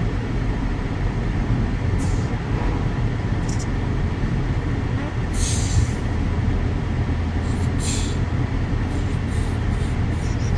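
Car interior road noise while driving: a steady low drone of engine and tyres on the road. A few short rustling hisses stand out about five and a half and eight seconds in.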